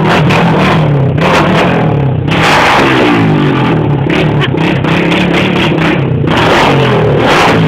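Honda Bros motorcycle engine running loudly, revving up and down a couple of times.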